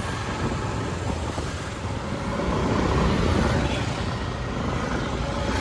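Motor vehicle engine and road noise: a steady low rumble.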